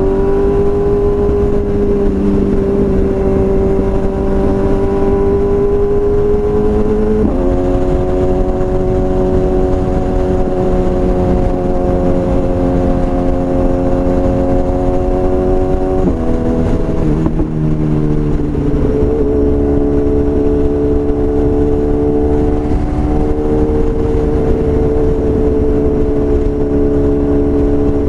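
BMW S1000RR inline-four running through a full Akrapovič exhaust. The engine note climbs at first and then holds steady at road revs. Its pitch steps a few times, with a dip and recovery a little past halfway.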